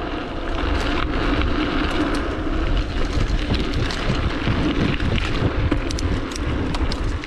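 Bicycle rolling along a dirt forest track: tyre noise with scattered rattling ticks from the bike over bumps, and wind rumbling on the microphone.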